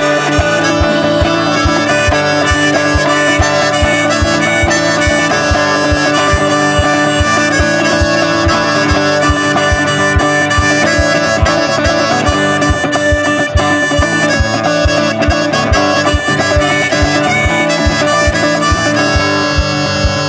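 Instrumental passage of a live song: acoustic guitar with a held, sustained melody line over a steady low beat a little over twice a second.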